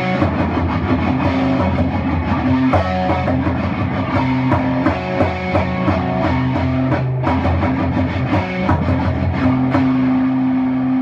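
Rock music with guitar and drums: dense held guitar notes over a steady low drone, with a brief drop about seven seconds in.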